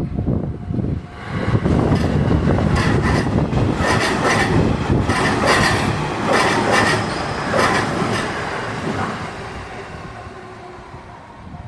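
A train passing close by, its wheels clacking rhythmically over the rail joints, then fading as it moves away.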